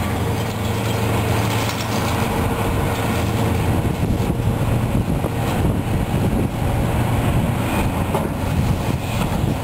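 Diesel engine of heavy demolition equipment running steadily with a low drone, with a few knocks as metal piping is pulled from the wreckage.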